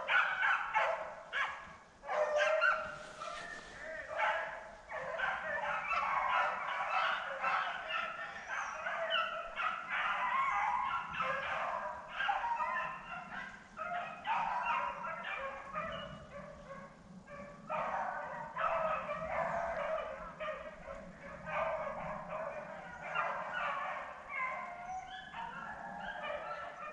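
A pack of beagles baying together, many voices overlapping almost without a break: hounds running a rabbit's track.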